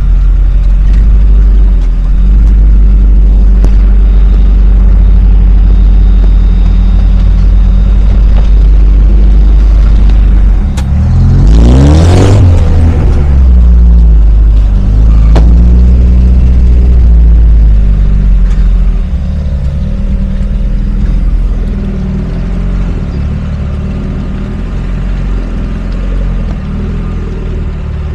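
Lada Niva's engine running while the car is driven off-road, under a loud, steady low rumble. About twelve seconds in, the engine revs up sharply and falls back. It settles somewhat quieter in the last third.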